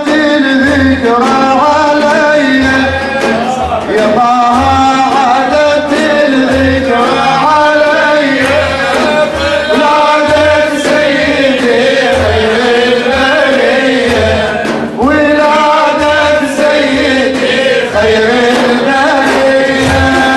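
A group of male praise singers (maddahin) singing an Arabic devotional praise song in a Middle Eastern melodic style, with a low drum beat about once a second.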